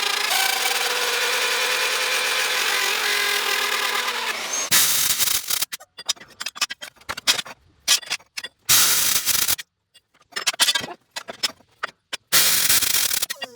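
A power-tool motor runs steadily for about four and a half seconds, then stops. After that come short, crackling bursts one after another with sudden gaps between them, in the manner of MIG tack welds on steel plate.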